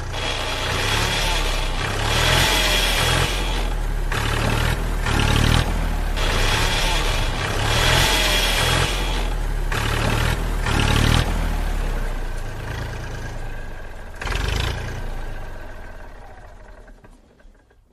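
Tractor engine running, with a low rhythmic pulsing, fading away over the last few seconds.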